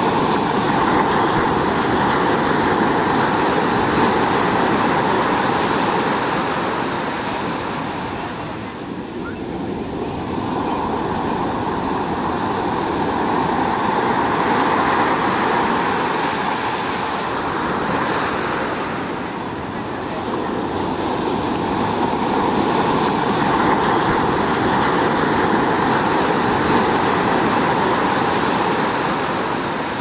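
Ocean surf washing onto the beach: a steady rush of breaking waves that swells and eases, easing briefly about nine and nineteen seconds in.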